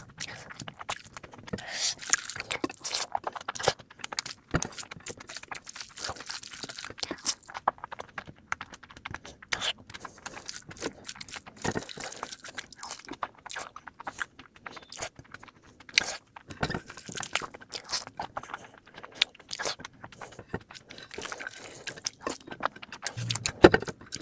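Close-miked ASMR eating sounds played at double speed: rapid, irregular crunching, chewing and wet mouth clicks, with a sharp loud snap near the end.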